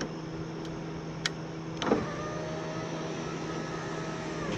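2002 Honda Civic power window motor and newly fitted regulator driving the glass: after a click or two, a steady motor whine for about two and a half seconds that ends with a thunk as the glass reaches the end of its travel. It runs smoothly, without hesitation, now that the broken cable regulator has been replaced.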